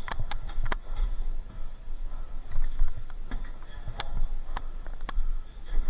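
Scattered sharp clicks and snaps, a few in the first second and three more about half a second apart later on, over a low rumble.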